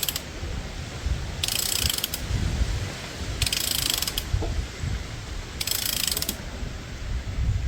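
Ratcheting torque wrench set to 23 N·m tightening a spark plug, its ratchet clicking in three short bursts about two seconds apart.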